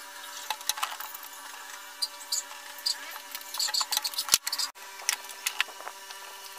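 Light scratching, tapping and handling noises as a line is marked up the wall along a spirit level, with a single sharp knock a little over four seconds in. A faint steady hum runs underneath.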